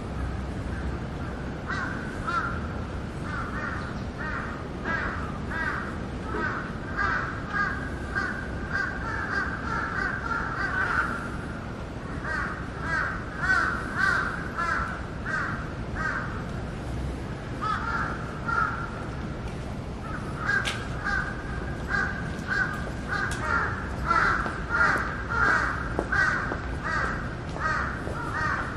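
Crows cawing over and over in long runs of several calls a second, with short breaks between runs, over a steady low rumble.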